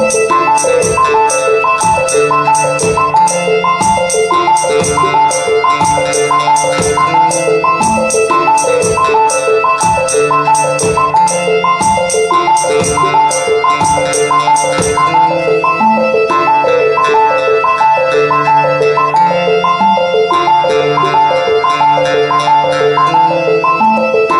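Electronic music played live on a Teenage Engineering OP-1 synthesizer: a fast looping sequence of short pitched notes over a bass line, with ticking percussion on top. The highest ticks drop out a little past halfway.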